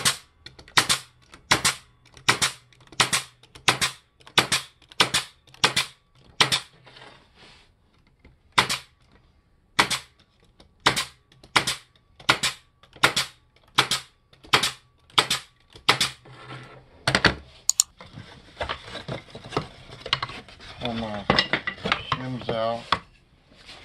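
Pneumatic narrow-crown stapler firing staples into the wooden ends of beehive frames held in an assembly jig. The shots come in two runs of about a dozen, roughly one every half second, with a pause of about two seconds between the runs. In the last few seconds there is rustling and scraping as the frames are handled.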